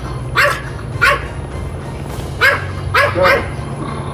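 A dog barking repeatedly, about five short, sharp barks in quick succession.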